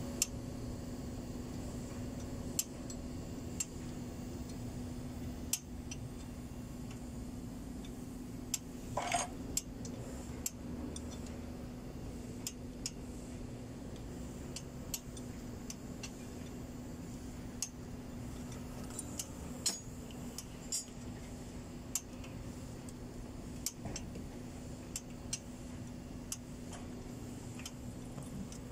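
Light metallic clicks and taps of hand tools working on a truck diesel engine, coming irregularly over a steady low hum.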